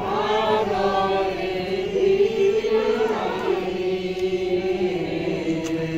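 Group of voices singing a slow devotional hymn together, with long held notes.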